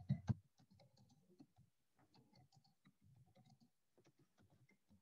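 Faint computer keyboard typing: irregular soft key clicks as a line of text is typed.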